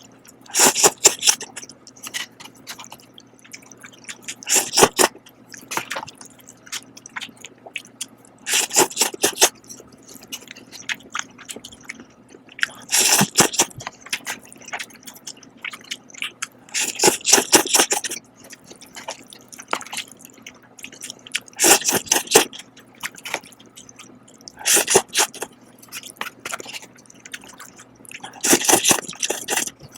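Person eating Shin Ramyun cup noodles close to the microphone: wet slurping bursts about every four seconds, with quieter chewing in between. A faint steady hum runs underneath.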